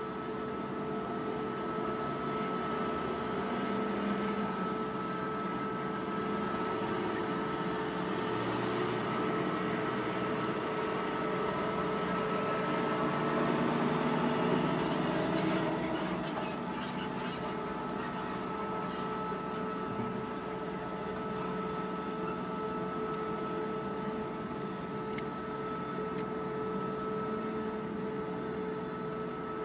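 Heavy diesel machinery running steadily, with a steady whine over the engine drone, as mobile cranes hold and lift a locomotive. The sound swells a little around the middle, with a short run of clicks and knocks.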